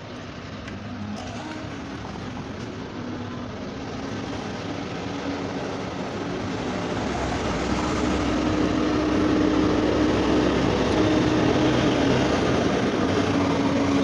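A motor vehicle engine running close by, growing louder over several seconds and then holding steady with a constant hum.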